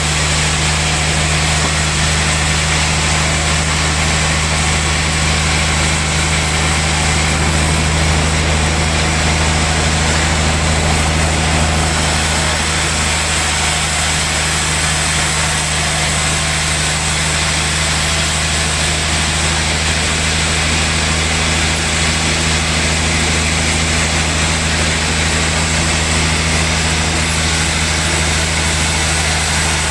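Sawmill machinery running steadily: a constant low engine-like hum with a hiss over it, level and unchanging throughout.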